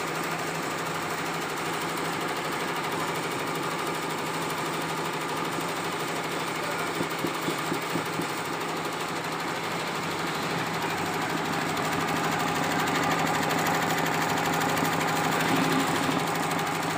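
Computerized multi-needle embroidery machine stitching at speed: a fast, even needle rattle over a steady motor hum, a little louder near the end.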